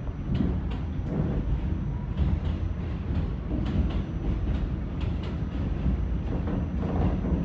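R46 subway car running at speed, heard from inside the car: a steady low rumble with repeated clicks of the wheels over rail joints, while another train passes close alongside on the next track.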